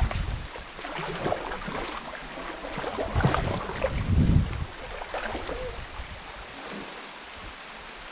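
Kayak paddle blades dipping and splashing in calm river water, with water lapping along an inflatable kayak's hull. The strokes come irregularly, with one louder splash about four seconds in.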